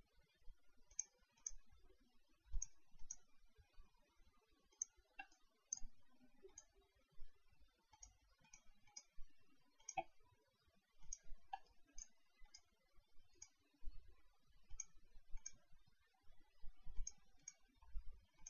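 Computer mouse buttons clicking faintly and irregularly, many clicks coming in close pairs.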